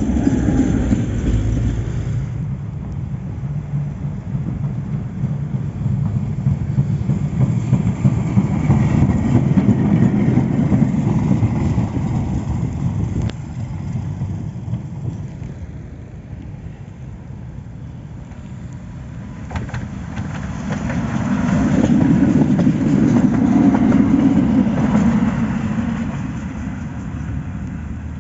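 Trams running on snow-covered track with a low rumble. The rumble of a Tatra T3 tram moving off is loud at first, eases off around the middle, then swells again and fades near the end as another tram passes.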